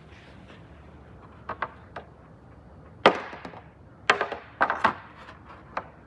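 Hard knocks and taps from a carbon fiber spoiler being handled on a car's trunk lid. A few light taps come first, then a loud knock about halfway, a quick run of knocks a second later, and a last tap near the end.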